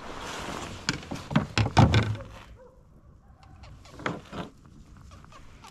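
A quick run of knocks and thumps, the loudest a dull thud about two seconds in, with a few more knocks about four seconds in: fish and gear being handled on a kayak.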